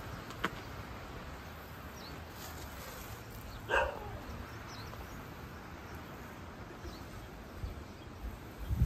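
A dog barks once, briefly, about four seconds in, over a quiet outdoor background.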